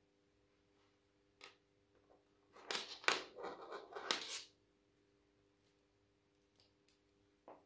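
Handling noise from a microphone kit's cable and parts being picked up and moved: a single click about a second and a half in, then about two seconds of louder rustling and clattering, and a few light taps near the end. A faint steady hum sits underneath.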